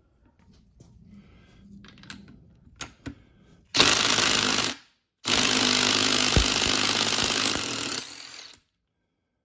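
Power impact wrench hammering in two loud bursts, one of about a second and one of about three seconds, spinning off the clutch lock nut of a Honda ATC90 engine with a special clutch-nut tool. A few light clicks and knocks of tool handling come first.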